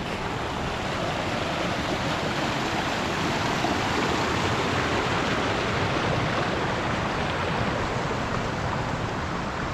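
A creek's water rushing steadily.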